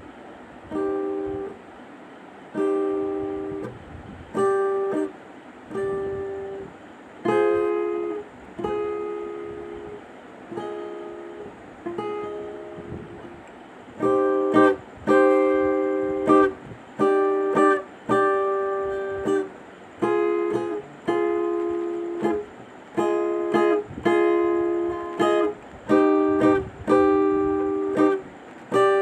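Background music of plucked string chords, each struck and left to ring out, in a slow steady rhythm that gets louder about halfway through.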